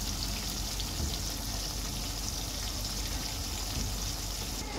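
Vegetables frying in hot oil: a steady sizzle with small crackles.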